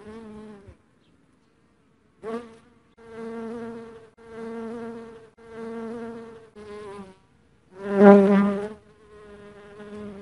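Honey bee buzzing in a series of separate bursts, most about a second long, each a steady low hum; the loudest buzz comes about eight seconds in.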